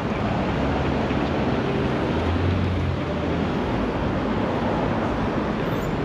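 Busy city street traffic: a steady rumble of engines and tyres, with a low engine hum that swells briefly about two seconds in.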